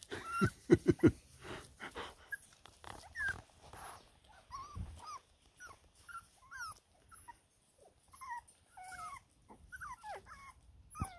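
Six-week-old Border Terrier puppies whining and whimpering: many short, high whines that rise and fall, more frequent in the second half. A few sharp knocks in the first second are the loudest sounds.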